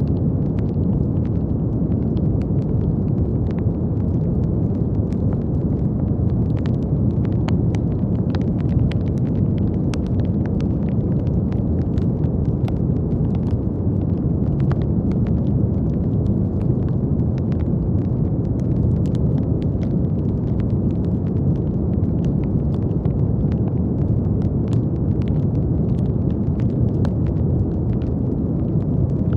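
Brown noise: a steady, deep rumbling hiss that stays even throughout, with faint scattered clicks.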